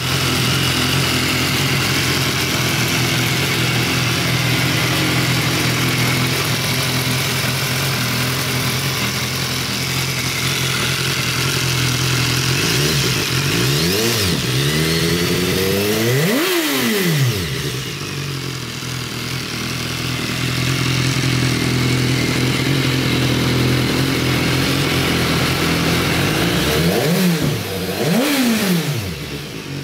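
BMW S1000R's inline-four engine idling steadily, blipped twice in quick succession about halfway through and twice more near the end, each rev rising and falling back to idle.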